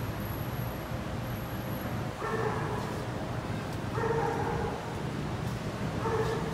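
A dog yelping three times, short pitched calls about two seconds apart, over a low steady hum.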